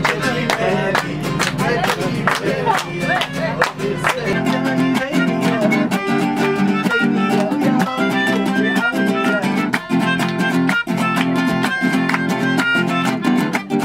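Music: plucked acoustic guitar over held, string-like notes and a steady beat.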